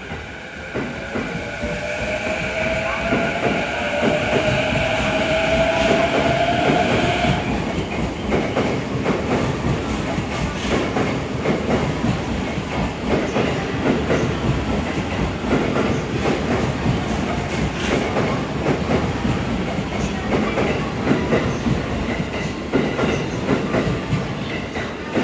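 JR E233 series 1000 train with Mitsubishi IGBT-VVVF inverter drive accelerating away from the platform. Its traction motors give a rising whine over steady higher tones, which stop abruptly about seven seconds in. After that the wheels clatter over rail joints as the carriages pass.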